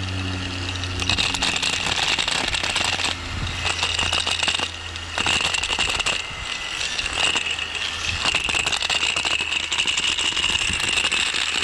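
A Harbor Freight Chicago Electric angle grinder running with a continuous harsh rattle and a steady high whine, which the owner puts down to worn-out bearings.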